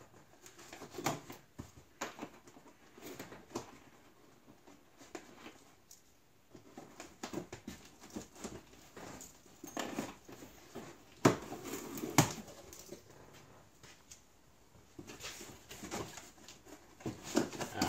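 Cardboard packaging and boxed parts being handled as an inner carton is opened: rustling cardboard with scattered clicks and knocks, two sharper knocks about eleven and twelve seconds in.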